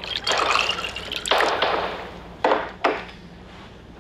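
Gunshots in a TV drama soundtrack: four sharp reports in a few seconds, each dying away, the last two close together.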